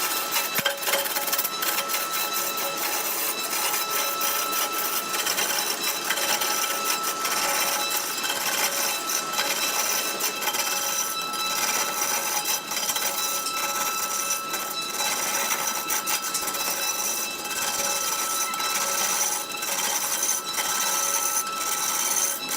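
Wood turning on a lathe: a cutting tool scraping and shaving the spinning wood, a continuous rough hiss full of small scratchy clicks over a thin steady whine.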